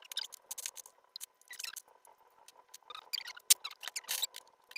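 Plastic Lego bricks being handled and rummaged through: irregular sharp clicks and short rattles as pieces knock together and are picked out.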